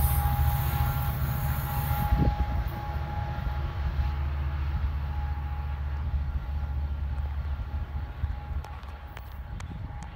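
Passenger train with an EMD F59PHI diesel locomotive moving away: the deep engine rumble and rail noise fade steadily, with a steady ringing tone in the mix and a few faint clicks near the end.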